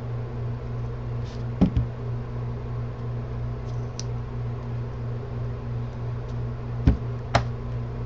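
A few short, sharp knocks and clicks, a pair about two seconds in and another pair near the end, as a screwdriver and the camera body's parts are handled during disassembly, over a steady low hum.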